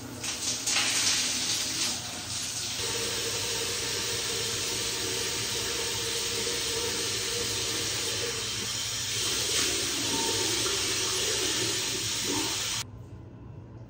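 Shower spray running steadily onto a tiled shower stall, then cutting off abruptly near the end.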